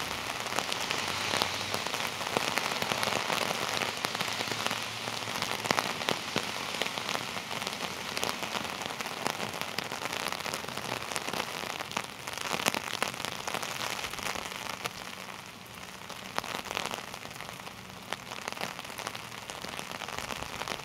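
Heavy rain falling steadily, with many sharp raindrop hits close to the microphone.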